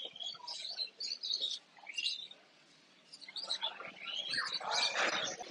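Caged birds chirping in many short, high calls, with a brief lull about halfway through and a busier, louder stretch near the end.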